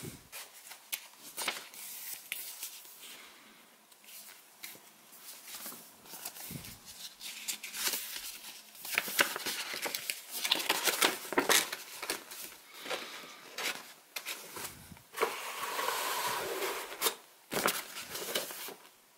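Paper rustling and crinkling in irregular bursts as a printed quick install card and a folded installation leaflet are handled, leafed through and unfolded.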